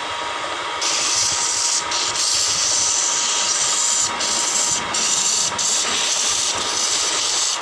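Sandpaper held against a spinning wooden table leg on a wood lathe: a steady sanding hiss that starts about a second in and lets up briefly several times as the paper shifts on the wood.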